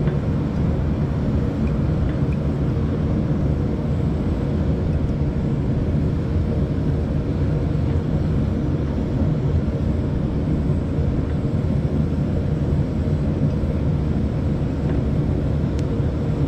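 Steady low mechanical drone with no change in level, with a couple of faint small clicks.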